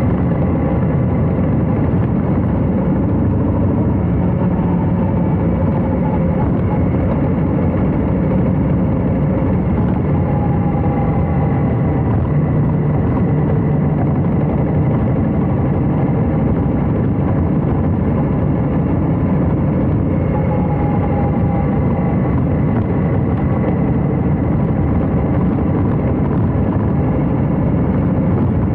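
Harley-Davidson Heritage Classic FLHC V-twin engine and exhaust running steadily under way, the pitch rising and falling a little with the throttle.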